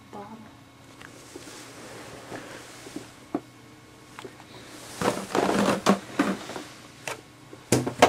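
A ferret knocking plastic water bottles about: quiet at first, then a burst of hollow plastic clattering and scraping about five seconds in, followed by a few sharp knocks near the end.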